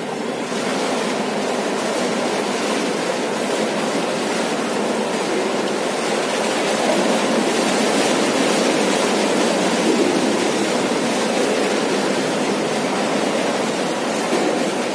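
Steady rushing water noise of an indoor swimming pool as a swimmer swims backstroke, even and without distinct splashes.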